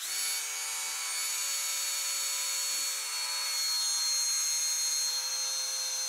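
Electric drill spinning a drill-driven mini water pump, a steady whine with a slight shift in pitch about four seconds in. The pump is running dry, with no water in it.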